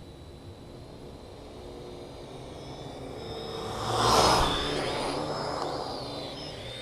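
Quadcopter drone's electric rotors whining, swelling to their loudest about four seconds in as the drone comes close, then fading, with the high motor whine bending up and down in pitch.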